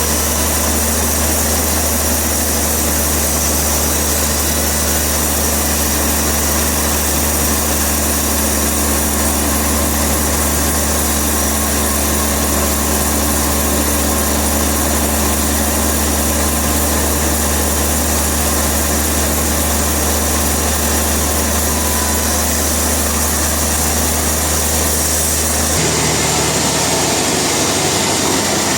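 Sawmill machinery running with a steady, loud low drone under a constant hiss. The sound changes abruptly near the end, the low drone thinning and the hiss dropping.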